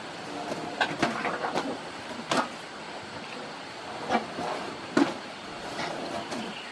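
Asian elephants feeding on bananas at close range: irregular crunches and knocks, the loudest a little after two seconds and at about five seconds, over a steady hiss.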